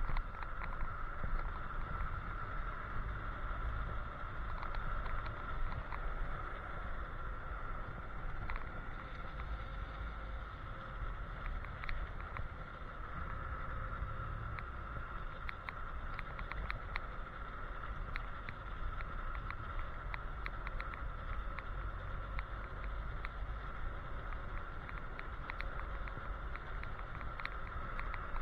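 Electric scooter riding along a paved road: low wind rumble on the microphone, a steady high whine, and scattered clicks and rattles from bumps in the road.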